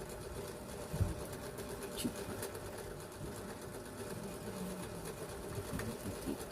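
A steady mechanical hum, with a single thump about a second in.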